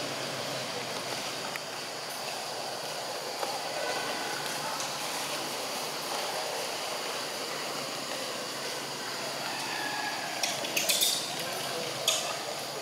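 Steady outdoor background noise, with a brief burst of crackly clicks about ten and a half seconds in and one sharp click near the end.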